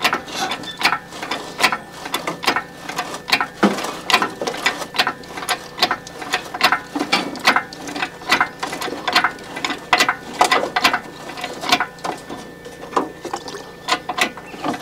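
Hydraulic engine crane working to raise an engine, hung on a chain, out of a car's engine bay: a steady run of sharp clicks and clanks, about two or three a second.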